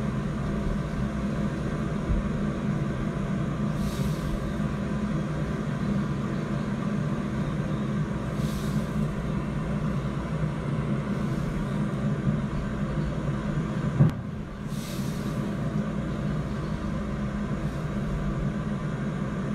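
A steady low machine hum runs throughout, with several short hissy bursts every few seconds and one sharp knock about fourteen seconds in.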